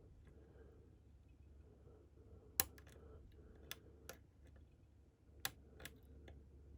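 Small metallic clicks and ticks of a lock pick and tension wrench working the pins inside a Medico cam lock: a few scattered sharp clicks, the loudest about two and a half seconds in.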